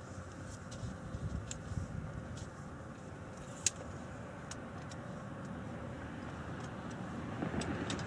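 ACA P-50 rotating siren at the very tail of its wind-down, the rotor coasting to a stop with a low, steady rumble. A single sharp click comes a little past halfway.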